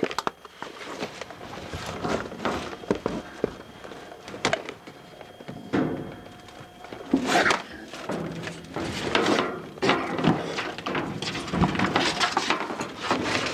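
Irregular knocks, thuds and scrapes in a small room, denser and louder about seven seconds in and again through the last few seconds.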